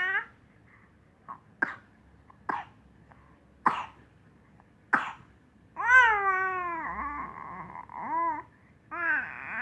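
A baby coughs about five times, short sharp coughs a second or so apart. Then the baby's voice comes in two long drawn-out sounds that rise and fall in pitch.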